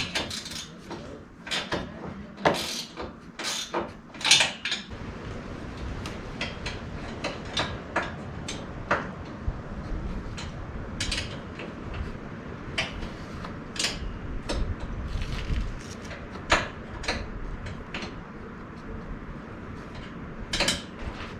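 Scattered metal clinks, taps and knocks of a wrench and bolts against a steel rock slider and its mounting hardware as the slider is fitted and tightened. The knocks come thickest in the first few seconds, and a low steady rumble sits underneath from about five seconds in.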